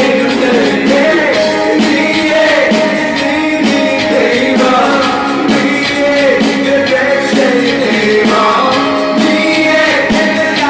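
A live band playing a song with sung vocals over keyboard and drums.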